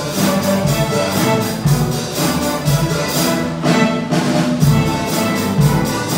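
A string orchestra of violins, cellos and double basses playing an upbeat piece over a steady low beat.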